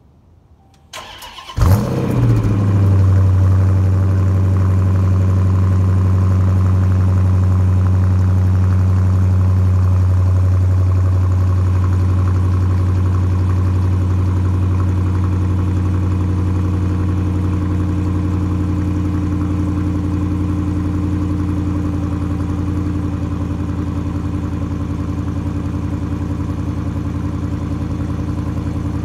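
Dodge Challenger R/T's 5.7-litre Hemi V8 cold-started through the stock exhaust: the starter cranks for about a second, the engine catches with a brief loud burst, then settles into a steady high cold idle that grows slightly quieter.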